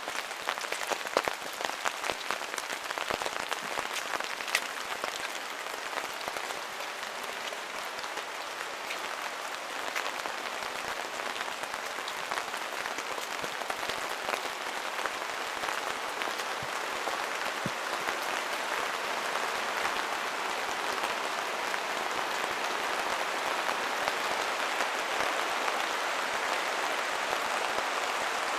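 Steady rain in a forest, with many close, sharp drops pattering in the first few seconds. A rushing hiss builds gradually louder toward the end.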